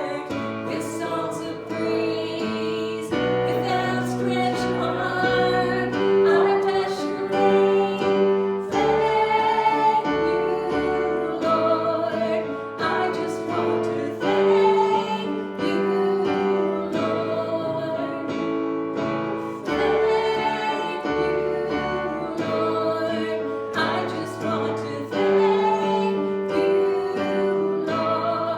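Singing with piano accompaniment: a slow song with long held notes.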